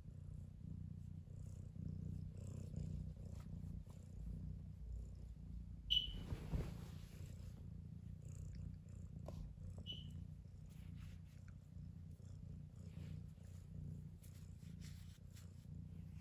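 Tabby-and-white domestic cat purring steadily while being stroked. A short high blip cuts in about six seconds in, the loudest moment, and a fainter one comes near ten seconds.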